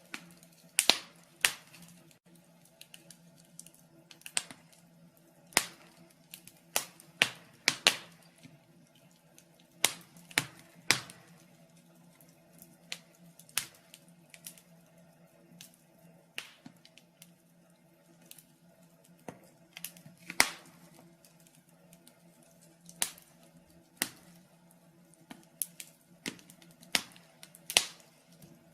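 Wood fire in a fireplace crackling: irregular sharp pops and snaps, a few loud ones among many small ones, over a faint steady low hum.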